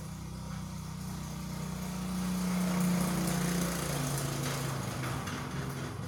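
A small engine running steadily, growing louder about two to three seconds in and then fading as its pitch drops slightly.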